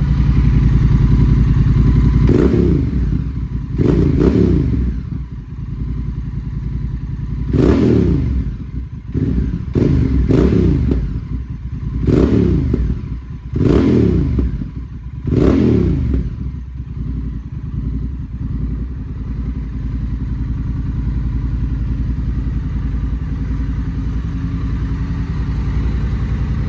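Honda Rebel 1100's parallel-twin engine, breathing through a Vance & Hines upsweep slip-on exhaust, revved in about eight quick blips of the throttle, each rising and falling in pitch, with snap, crackle and pops on the overrun. It then settles to a steady idle for the last ten seconds or so, echoing in a garage.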